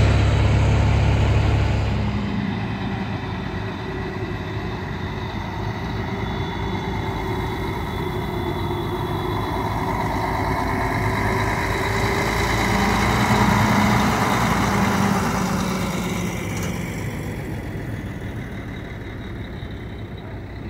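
Diesel engine of a Mercedes-Benz Axor truck tractor running as it pulls a flatbed trailer loaded with a precast concrete beam slowly past. It grows loudest about thirteen seconds in, then fades.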